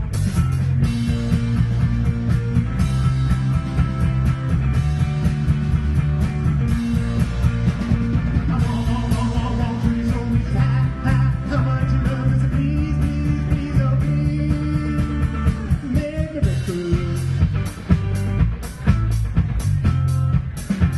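Live rock band playing: two electric guitars over a drum kit, with a melodic line that bends in pitch through the middle of the passage.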